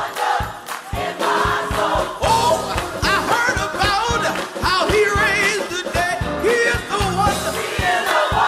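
Gospel mass choir singing with instrumental accompaniment over a steady beat, the voices wavering in vibrato.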